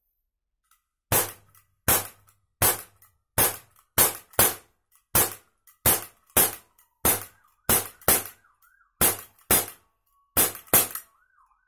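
ISSC M22 4.5mm CO2 blowback BB pistol firing about sixteen shots in a steady string, roughly one and a half a second, each a sharp snap of the shot and the slide's blowback.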